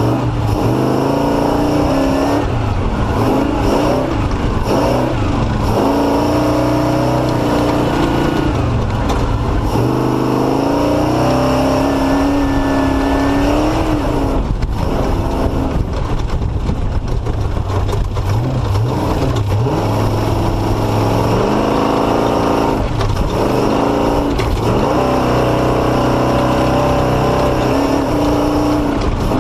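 Off-road race vehicle's engine heard on board, revving up and falling back again and again as the throttle is worked on and off through slow, tight, rocky terrain.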